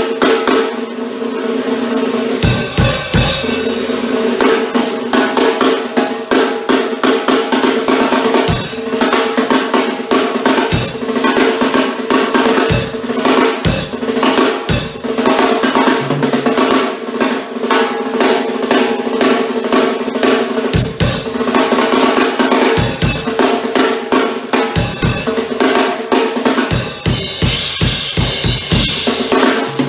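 Drum kit played in a continuous groove: snare and kick-drum hits with rolls, and cymbal crashes ringing out near the start and again near the end.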